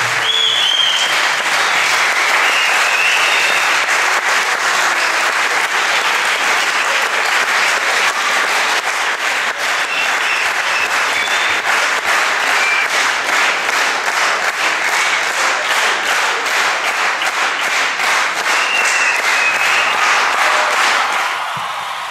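Audience applause, dense steady clapping with a few brief cheers rising above it, fading out near the end.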